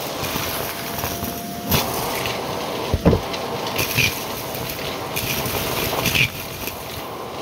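Shark Navigator upright vacuum running steadily, with a few sharp crunches and knocks as it picks up debris.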